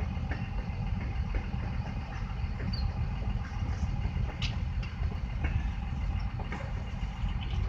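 A slow-moving CSX freight train's cars rolling past a level crossing, heard from inside a car: a steady low rumble with a few scattered clicks.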